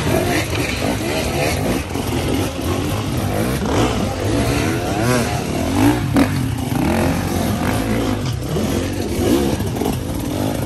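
GasGas hard-enduro motorcycle engines revving hard and blipping, the pitch rising and falling constantly as the bikes clamber over boulders.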